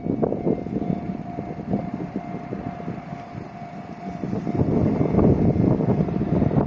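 Freight train passing over a level crossing, its wheels rumbling and clattering on the rails and swelling louder about four and a half seconds in, with a steady tone sounding over it.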